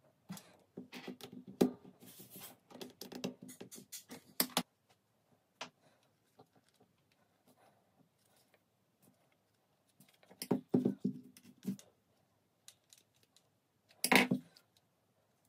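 Close handling noise from small hard objects: bursts of clicks, taps and scraping, with scattered faint ticks between and one sharper clack near the end.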